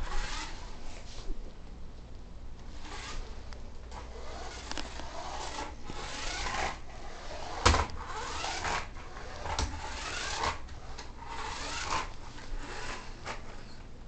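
Toy remote-control car driving on a wooden floor: irregular rubbing swishes of its wheels and drive, with a sharp knock a little before halfway through.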